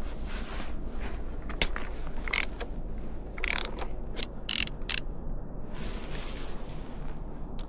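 Socket ratchet wrench clicking in short runs, with a few sharp metal clinks, as a 10 mm bolt is turned.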